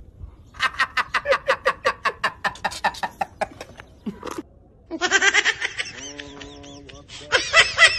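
Rapid, repeated laughter pulses at about seven a second, then a pause. Another bout of laughter starts near the end.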